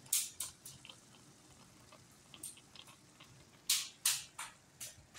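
A pan of quelites stewed with tomato and onion simmering: bubbles burst in irregular sharp pops and crackles, in small clusters.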